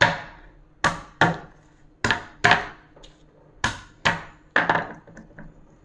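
Pestle knocking down onto garlic cloves on a wooden cutting board to smash them: about nine sharp wooden knocks, mostly in pairs.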